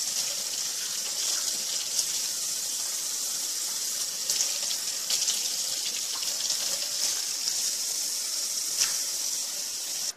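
Kitchen faucet running into a stainless steel sink as raw pork chops are rinsed under the stream, a steady rush of water with small splashes. It stops suddenly at the very end.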